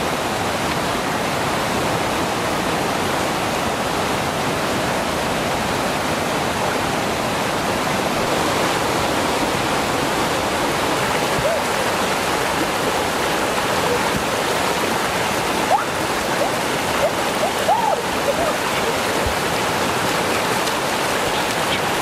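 Swollen, fast-flowing muddy river rushing steadily over rocks, with a few faint short calls over it in the second half.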